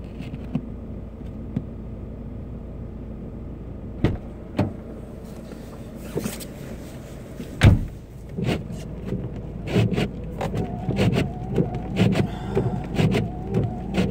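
Car idling steadily, with two sharp knocks about four seconds in and a loud thump a little past halfway as a car door shuts. After that comes a run of irregular knocks and rustles from inside the cabin.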